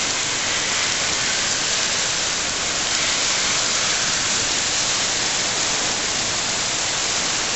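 Heavy rain from a severe thunderstorm pouring down on pavement, lawns and parked cars: a dense, steady hiss that doesn't let up.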